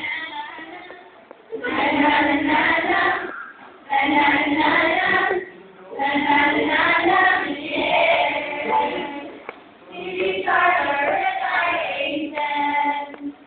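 A group of young men and women singing a song together in unison, in phrases of a couple of seconds with short breaks between them.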